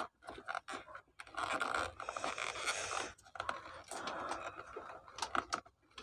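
Hard plastic scraping and rubbing with quick small clicks as hands work a power switch loose from a coffee grinder's plastic housing, in two spells of scraping followed by a few sharp clicks near the end.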